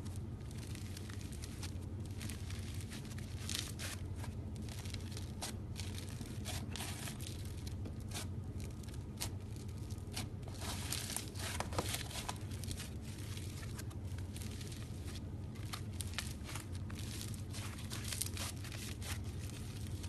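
Slime being squished and stretched by hand, with irregular crackling and popping over a steady low hum.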